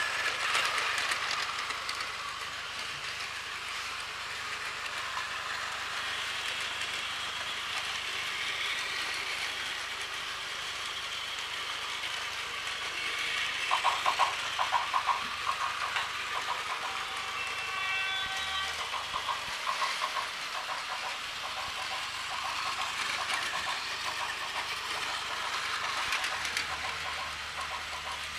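Several battery-powered Plarail toy trains running on plastic track: a steady whir of small motors and wheels, with a stretch of fast rattling clicks about halfway through and a short pitched tone a little later.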